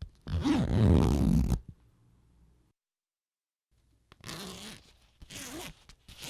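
A zipper being opened and closed: one long, loud pull of a bit over a second, then, after a pause, three shorter, quicker pulls.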